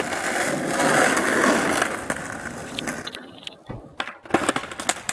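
Skateboard wheels rolling over rough asphalt, fading away after about two seconds. Then a few sharp clacks as the board's deck strikes the ground during a flip trick.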